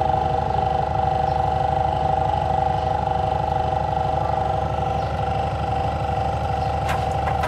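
A motor running steadily: an even hum with a fast, regular pulsing rumble underneath, unchanging throughout. A few faint clicks come near the end.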